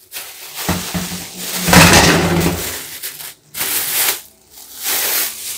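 Plastic wrapping crinkling and rustling as two wire fan guards are handled and separated inside it, in several irregular bursts with the loudest about two seconds in.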